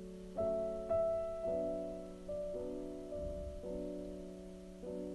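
Background piano music: single notes and chords struck at a slow pace, each left to ring.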